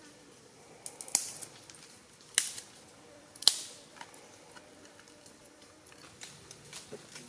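Dry twigs snapping sharply, three loud cracks in the first few seconds, then fainter crackles and clicks.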